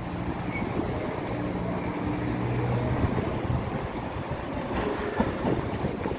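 DDB1 diesel train running in on its diesel engine, a steady low drone, with clicks of wheels over the rails in the second half.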